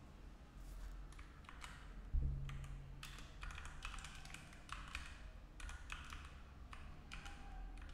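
Typing on a computer keyboard: an irregular run of key clicks, with one louder low thump about two seconds in.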